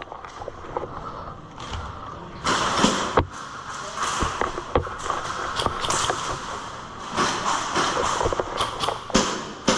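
Airsoft player's movement noise: gear and clothing rustling, broken by several sharp knocks or clicks at irregular moments.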